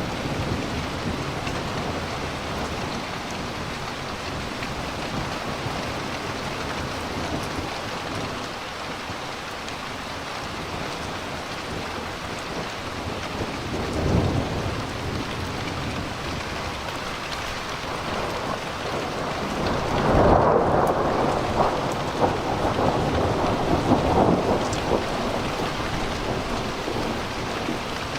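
Steady rain falling through a thunderstorm, with thunder from lightning overhead. There is a short low rumble about halfway through, then a louder peal about two-thirds in, with several sharp cracks in it, rumbling on for about five seconds.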